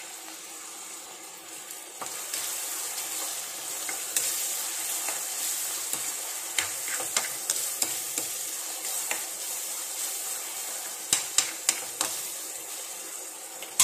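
Chopped onions and tomatoes sizzling in oil in a non-stick kadai while a spatula stirs them, scraping through the pan. The sizzle gets louder about two seconds in, and there are a few sharp knocks of the spatula against the pan near the end.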